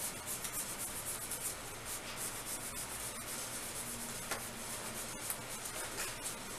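Screen protector being rubbed down onto a tablet screen to press out trapped air: a steady rubbing with faint strokes.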